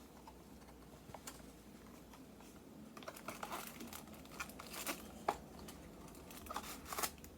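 Packaging crinkling and rustling with light clicks and knocks as a small watch box is opened by hand, quiet at first and busier in the second half.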